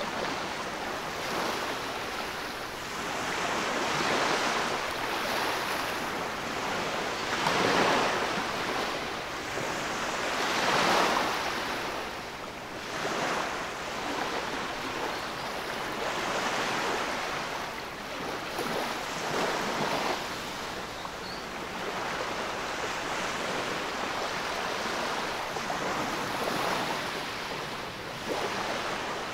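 Waves washing up a sandy beach in shallow foamy swash and drawing back, a steady rush of surf that swells every few seconds, loudest about eight and eleven seconds in.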